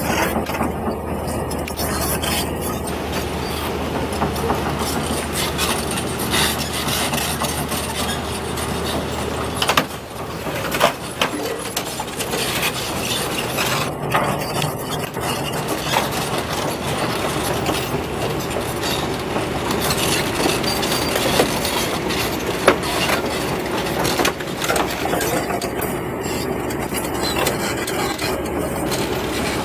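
Crawler excavators working: an engine running under a dense run of metallic clanking and clicking from the steel tracks and arm. A low engine hum is strong at first and drops away about ten seconds in.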